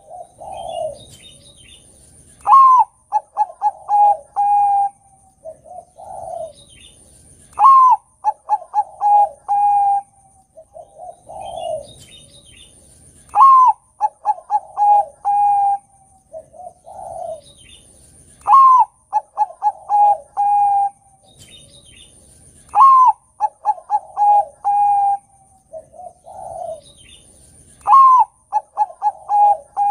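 Bangkok-type zebra dove (perkutut) singing its loud cooing song. The same phrase comes about every five seconds, six times: a low coo, a rising note, then a quick run of short staccato coos.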